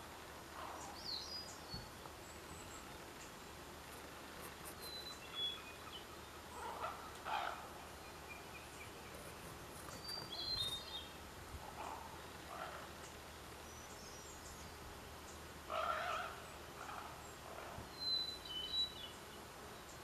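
Common ravens calling in scattered bursts, the loudest about three quarters of the way through, with short high chirps of small birds in between.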